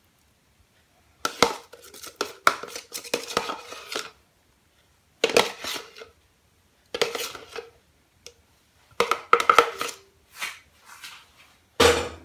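A metal spoon scraping and knocking against a stainless steel mixing bowl in about six short bursts with pauses between, as whipped cream is scooped into it; a sharper knock comes near the end.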